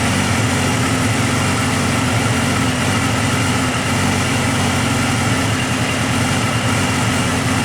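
Honda CBR250R Hurricane's 250 cc inline-four engine idling steadily.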